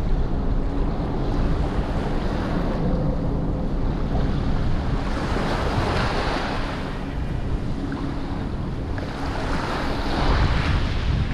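Small waves breaking and washing up on a sandy shore, swelling louder twice, with wind buffeting the microphone.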